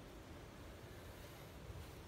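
Faint background hiss with a low rumble underneath, and no distinct event.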